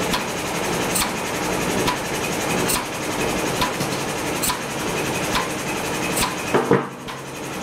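A pump sending maple syrup through a filter runs steadily with a sharp click a little faster than once a second, while the syrup pours from a pipe into a steel drum. Near the end come a couple of knocks and the running noise drops as the flow is shut off at the valve.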